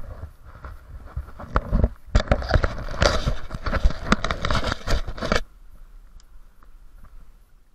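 Close-up rustling, crackling and clicking of dry branches and gear as someone moves through shoreline bushes. The noise stops suddenly about five and a half seconds in, leaving only faint scattered ticks.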